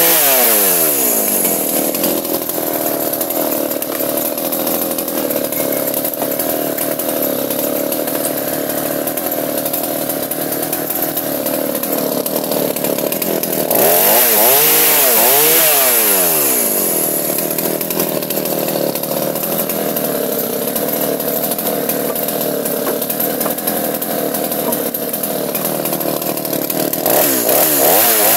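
Two-stroke chainsaw running under load, its engine pitch dropping from high revs as it bites and then holding a lower, steady note. About halfway through it briefly revs higher and sinks back under load again, and near the end the revs climb once more.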